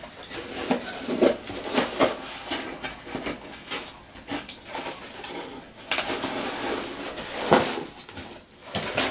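A cardboard box being closed and handled, its flaps and shredded-paper filling rustling, with sharper knocks of cardboard about six and seven and a half seconds in.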